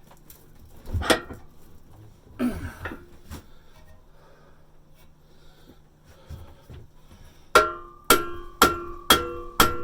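Hammer blows on a steel screwdriver being driven into a rusted exhaust pipe joint to part it from the muffler: a few scattered knocks, then, near the end, a run of five ringing metal strikes about two a second.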